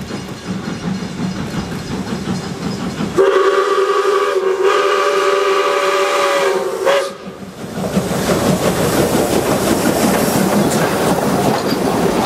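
Steam locomotive working toward the listener with exhaust chuffing, then sounding a long multi-tone steam whistle for about four seconds, briefly broken about a second into the blast. After the whistle, its passenger carriages rumble and clatter past on the rails.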